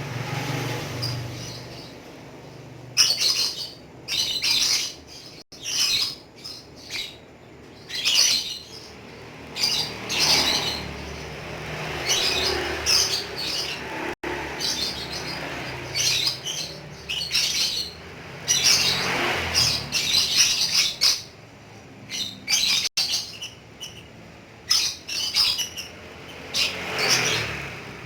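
Lovebird chattering in long runs of rapid, high chirps (the 'ngekek' song), in bursts of a second or two with short breaks between them, over a steady low hum.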